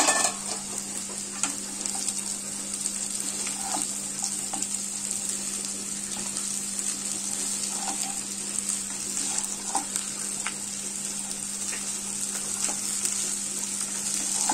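Boiled chowmein noodles sizzling in hot oil in a nonstick kadai over high heat, tossed and stirred with a wooden spatula, with occasional light knocks of the spatula against the pan.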